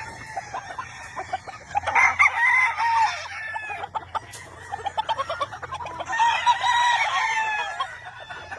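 Gamefowl roosters crowing, two long crows about two seconds and six seconds in, over steady clucking of chickens.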